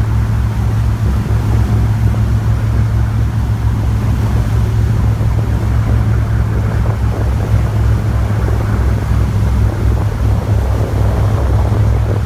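A boat's engine running steadily, a constant low drone, with wind and rushing water over it.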